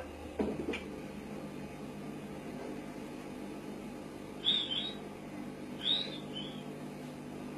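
Two short, high-pitched bark-like yelps from a human voice, about a second and a half apart, over the steady hiss of an old tape recording, with a couple of faint clicks near the start.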